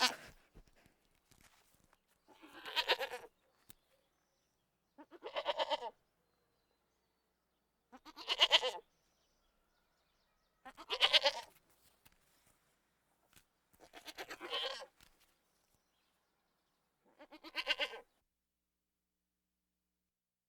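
A goat bleating over and over: seven wavering calls, each under a second, spaced about three seconds apart, then a pause near the end.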